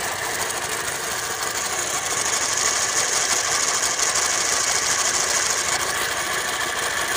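Yamaha NMAX single-cylinder engine running with its valve cover off, making a rough, fast rattling clatter from the top end. The noise is the sign of a worn, loose camshaft bearing.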